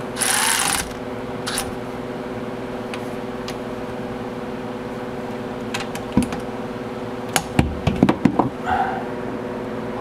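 Cordless electric ratchet runs for under a second, driving a bolt home on the underside of a golf cart engine, followed by a few light clicks and knocks of metal parts. A steady hum carries on underneath throughout.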